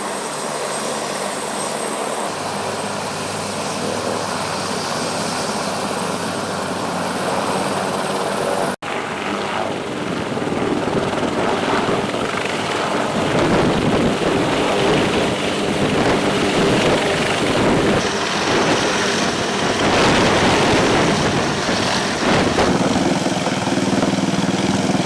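Aircraft engine and rotor noise, running steadily. It cuts out for a moment about nine seconds in, then comes back louder with a pulsing beat in the low end.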